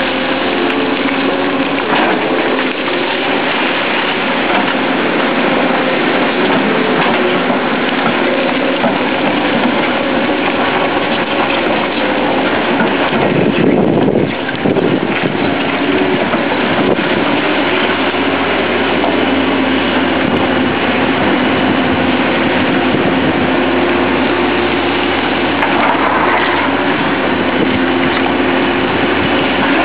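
Caterpillar hydraulic excavator's diesel engine running steadily as the machine digs and swings its bucket, with a brief surge about halfway through.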